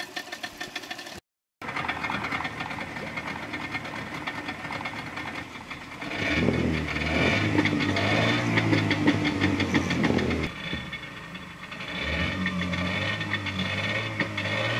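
Parsun 40 hp two-stroke outboard running with its leg in a barrel of water, a steady rapid engine beat. It drops out for a moment about a second in. It grows louder for a few seconds from about six seconds in, and again near the end.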